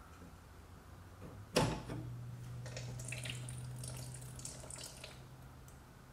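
Plastic quick-connect fuel line snapping loose from a VW/Audi 2.0T inline fuel filter with one sharp click. A few seconds of hissing, trickling spatter follow, like residual fuel escaping from the opened line, over a steady low hum.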